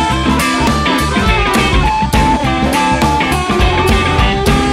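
Electric blues band playing an instrumental passage: a lead electric guitar holds and bends long notes over bass and a steady drum-kit beat.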